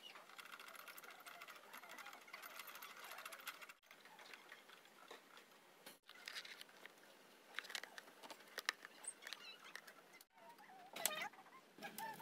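Faint rapid light clicking and rattling for the first few seconds, then scattered soft clicks and taps.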